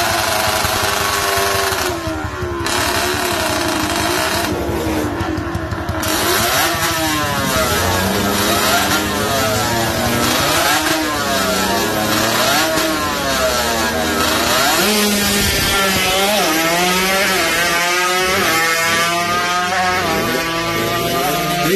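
Two-stroke single-cylinder engine of a Kawasaki KR motorcycle bored to 200 cc, running at high revs for several seconds, then revved up and down again and again, its pitch rising and falling about every second or two, as the engine is being tuned.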